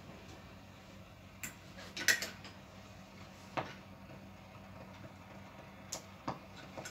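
Metal clothes hangers clicking and clinking against a clothes rail as a garment is hung up: a few separate clicks, the loudest about two seconds in, over a faint steady hum.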